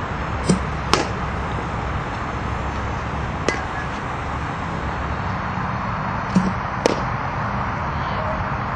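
Two softball swings in batting practice: each time a dull thump of the pitching machine launching the ball, then about half a second later the bright, ringing ping of the bat hitting it. A lighter single click comes in between, over steady outdoor background noise.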